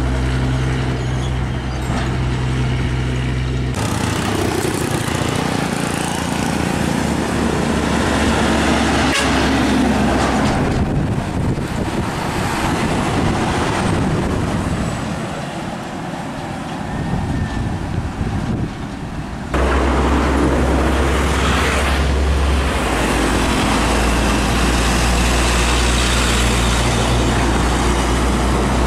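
Heavy diesel tractor-trailers passing close by, a steady engine drone with tyre and road noise. The sound changes abruptly twice, about four seconds in and past the middle, where the clips are cut together.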